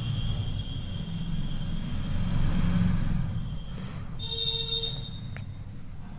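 Low background rumble with one short horn toot, a bit under a second long, about four seconds in.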